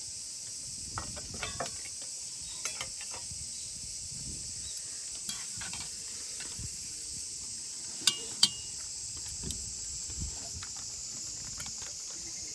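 Night insects chirring steadily, with scattered light clicks and knocks of handled gear and two sharper clicks about two-thirds of the way through.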